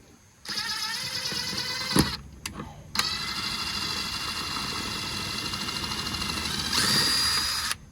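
Power drill running twice while drilling a mounting hole in a car's side skirt: a short run of about two seconds, then a longer steady run of about five seconds whose whine rises in pitch near the end.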